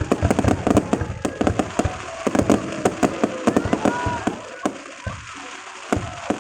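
Aerial fireworks going off in a dense run of sharp bangs and crackles, thinning to scattered bursts after about four and a half seconds.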